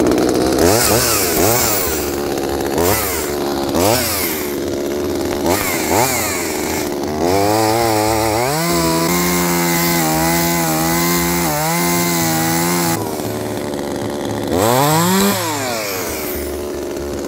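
Echo CS-2511TES two-stroke top-handle chainsaw revved in short blips about once a second, then held at full throttle for about six seconds while cutting through a wet, green log, its pitch dipping slightly under load without bogging down. It drops back to idle about thirteen seconds in and is revved once more near the end.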